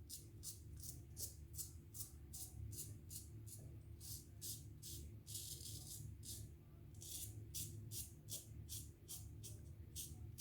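GEM Featherweight single-edge safety razor scraping through lathered stubble in quick short strokes, about three a second.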